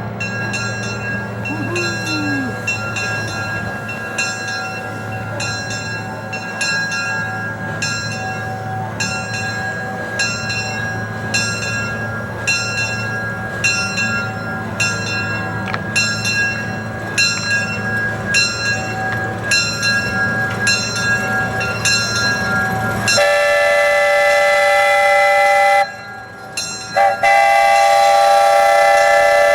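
A steam locomotive running, with regular chuffs over a low steady rumble. Near the end a Buckeye three-chime steam whistle sounds two long blasts with a brief break between them.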